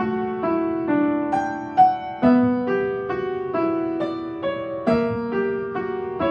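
Piano-like keyboard music: a slow melody of struck notes, about two a second, each left to ring and fade.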